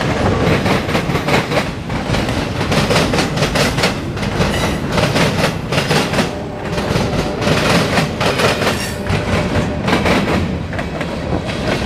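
CSX local freight train rolling past, its wheels clicking rapidly and steadily over the rail joints.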